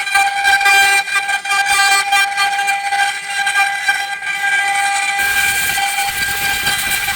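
Spindles of a multi-head 4-axis CNC wood router with rotary axes whining steadily at a high pitch while the router bits carve wood. A rougher cutting noise comes in about five seconds in.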